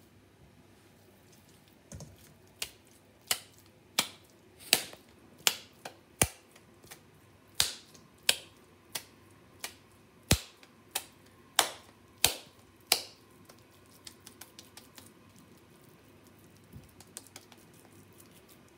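A ball of ground pork hamburger mixture being tossed between oiled palms, slapping into each hand about one and a half times a second to knock the air out of the patty. Near the end the slaps give way to a few soft pats as the patty is shaped.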